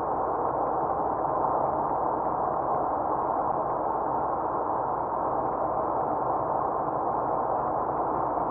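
Steady road and tyre noise of a car driving at highway speed, heard from inside the cabin: an even rush that holds unchanged throughout.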